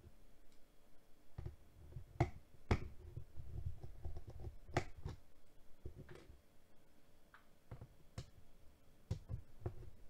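Scattered sharp clicks and taps of a screwdriver and small metal parts handled inside an open laptop's chassis, a few seconds apart, the loudest two to five seconds in.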